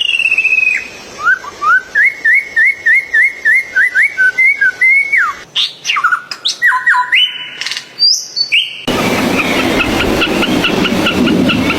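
Bird calls in a series of short clips: a falling whistle, then a run of quick rising chirps repeated about three times a second, then assorted whistles and pitch glides. About nine seconds in, an abrupt switch to a noisier recording with fast repeated chirps over a hiss.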